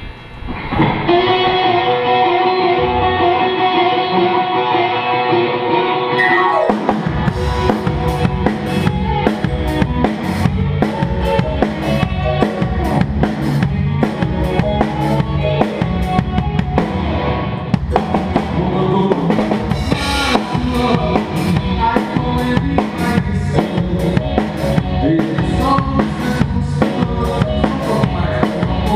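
Music: a recorded song opens with about six seconds of sustained keyboard-like chords. Then a drum kit comes in with a steady beat of bass drum, snare and cymbals over the song.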